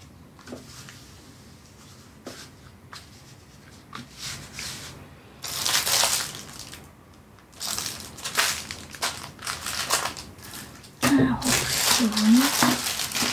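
Clear plastic bags of diamond-painting drills being handled and laid out, crinkling in irregular bursts that are loudest about six seconds in and over the last couple of seconds.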